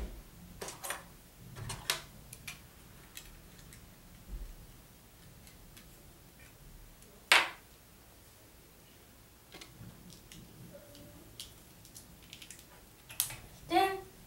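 Scattered light clicks and clatters of plastic Lego pieces being handled and fitted together, with one sharper click about seven seconds in.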